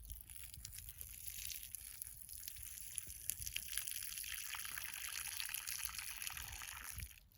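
A man urinating outdoors: a steady, hissing stream of urine hitting the ground, which stops suddenly near the end.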